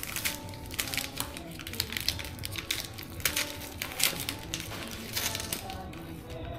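A bag of yellow cornmeal being pulled open and handled: a quick, irregular run of crinkling and crackling rustles.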